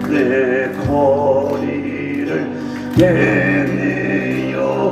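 A voice singing a slow old Korean popular song over backing music, holding each word as a long note with a wavering vibrato.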